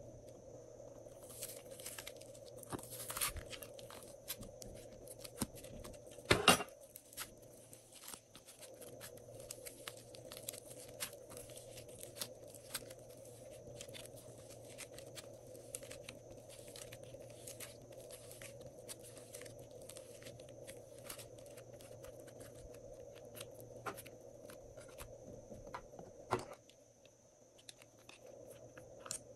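Hands pressing, pulling and squishing soft modelling clay, making many small sticky crackles and clicks, with one sharp knock about six and a half seconds in.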